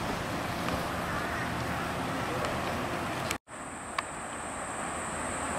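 Steady outdoor background noise with no single clear source. It drops out completely for a moment about three and a half seconds in, then returns slightly quieter with a faint high steady whine.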